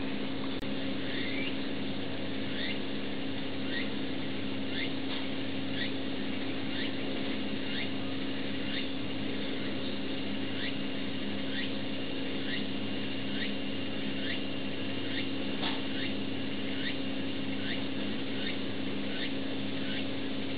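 A steady low machine hum, with a short high chirp repeating at an even pace of about two a second.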